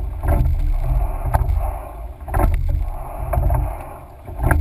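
Sweep-oar rowing four under way: sharp clunks about once a second from the oars turning in the oarlocks at catch and release, over the rush of water along the hull and wind rumble on the microphone, swelling and easing with each stroke about every two seconds.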